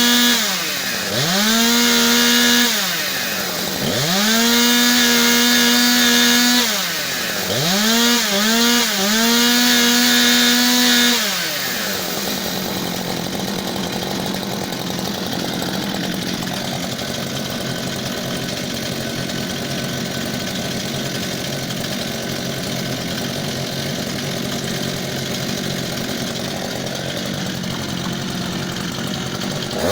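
Two-stroke chainsaw engine blipped to full throttle about five times in the first eleven seconds: each rev climbs fast, holds briefly at maximum speed, and drops back. After that the saw runs on steadily with a lower, rougher note.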